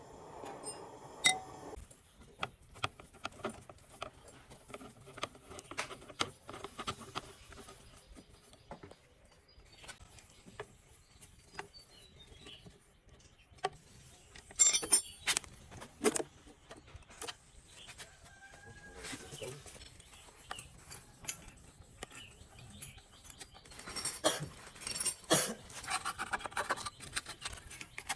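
Irregular metal clinks, taps and knocks from tools and engine parts being handled, with louder bunches of clatter about halfway through and again near the end.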